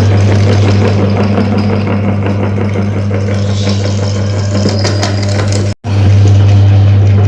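Electric meat grinder running with a steady motor hum and a dense crackling as soap is forced through it. The sound drops out for a moment about six seconds in, then carries on.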